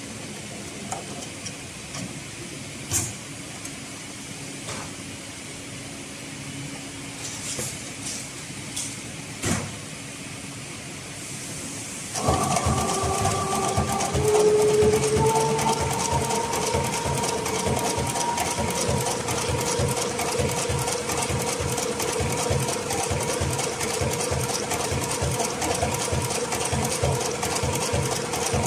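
HighTex 204-370PRO heavy-thread decorative-stitch sewing machine. A few light knocks come first, then about twelve seconds in the machine starts stitching steadily. It makes a fast, even run of needle strokes over a steady motor whine.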